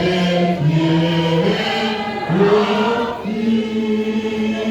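A choir singing a slow hymn, holding each note for a second or more.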